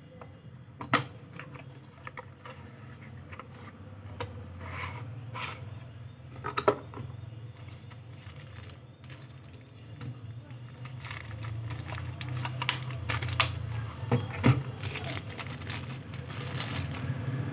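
A cardboard box and the plastic packaging of a pulse oximeter being handled: a few sharp taps and knocks, then crinkling of small plastic bags in the second half, over a steady low hum.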